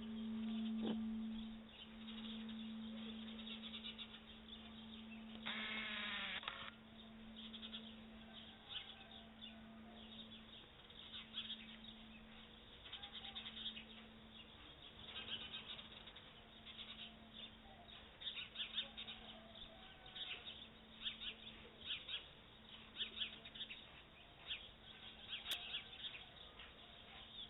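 Birds chirping, many short calls growing busier in the second half, with one longer call about six seconds in. Under them the low hum of a church bell lingers after the ringing, slowly swelling and fading as it dies away.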